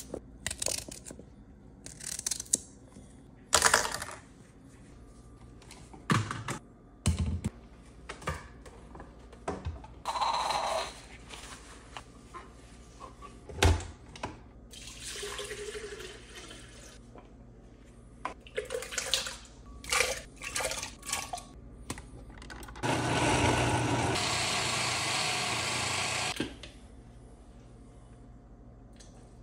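Water poured from a plastic jug into a countertop blender jar of chopped carrots, a steady splashing run of about three seconds near the end. Scattered knocks and clicks of the blender jar and its parts being handled come before it.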